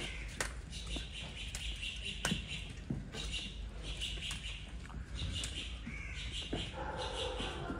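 Small birds chirping in repeated bursts of high, rapid chirps, with scattered sharp clicks. About seven seconds in, a lower pitched call joins.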